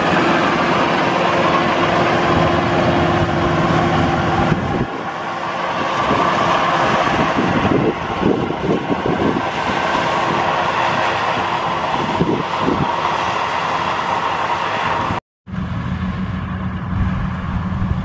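Maxxi Bimo Xtreme 2.0 rice combine harvester running steadily while harvesting, its engine and threshing machinery together. About fifteen seconds in the sound cuts out for a moment and returns as another combine harvester running.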